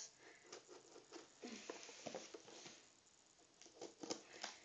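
Folding camping knife slitting the packing tape on a small cardboard box: faint, irregular scratches and ticks of the blade on tape and cardboard.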